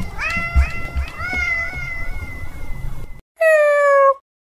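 Domestic cat meowing: a run of several short meows in quick succession with a low rumble underneath, then a brief pause and one louder meow that falls in pitch and cuts off suddenly.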